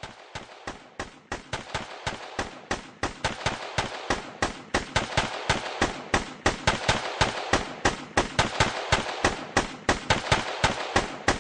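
A rapid, evenly spaced run of sharp cracks, about six or seven a second, growing steadily louder.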